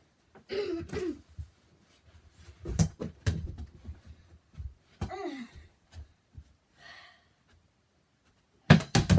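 Scattered knocks and thumps in a small room, with a few short, faint vocal sounds; a quick run of louder thumps comes near the end.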